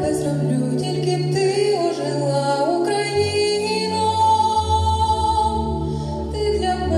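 A girl singing into a handheld microphone over backing music with steady bass notes. She holds one long high note through the middle.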